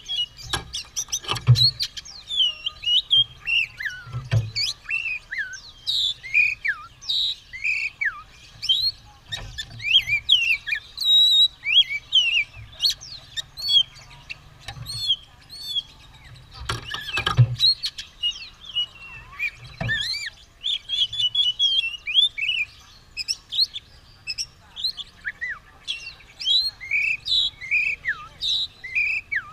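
Oriental magpie-robin (kacer) singing continuously, a fast, varied run of whistles, chirps and gliding notes. A few sharp knocks break in, twice close together around the middle.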